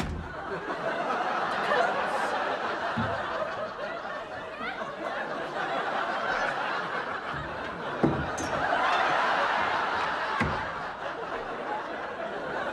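Studio audience laughing throughout, swelling twice, with a few dull thumps mixed in.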